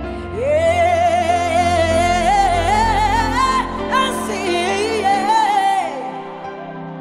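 A gospel song: a single high voice sings one long phrase with heavy vibrato over held accompaniment chords, stopping about six seconds in while the accompaniment carries on.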